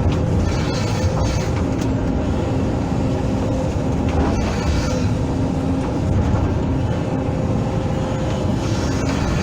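Hydraulic excavator's diesel engine running steadily under load, with a whine from the hydraulics that comes and goes as the machine works. A single knock sounds about four seconds in.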